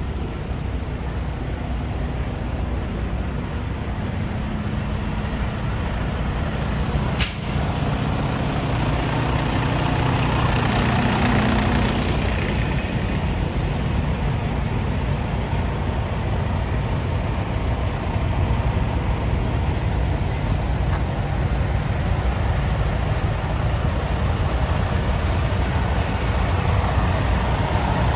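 Parked diesel semi-trucks idling in a steady low rumble. There is a sharp click about seven seconds in, and a hiss swells and fades a few seconds later.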